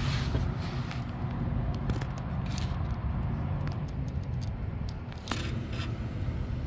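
Steady low mechanical hum, with scattered light scrapes and clicks from the camera being handled close to the microphone.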